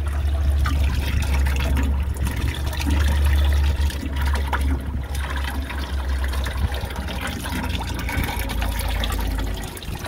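Used diesel engine oil pouring in a steady stream from the drain plug hole of a Ford 6.7 L Power Stroke oil pan and splattering onto the metal mesh grate of a drain pan. A steady low hum runs underneath and stops near the end.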